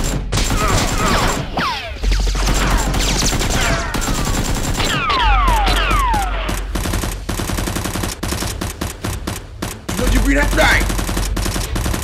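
Rapid automatic gunfire sound effects, long bursts of shots with several falling whistle-like sweeps in the first half.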